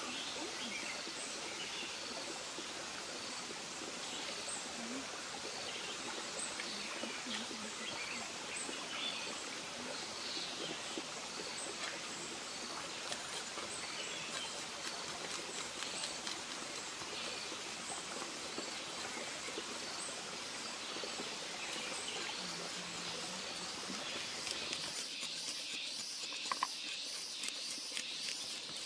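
Steady rush of a shallow rocky stream with birds chirping over it. Near the end the water is quieter and a few sharp knocks sound, from a cleaver cutting fish on a wooden chopping board.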